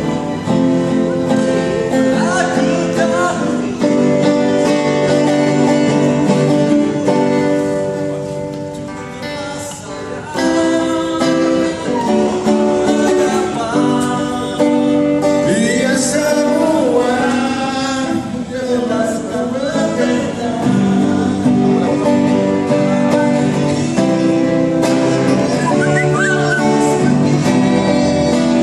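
Background music: a song with a male singing voice over guitar.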